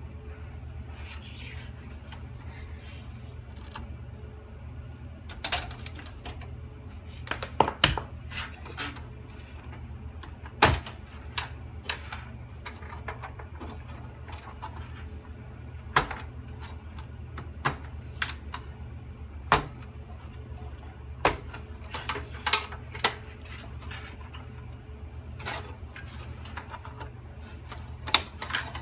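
Scattered sharp clicks and light knocks of tools and metal computer parts being handled while a desktop computer is taken apart, at irregular intervals over a steady low hum.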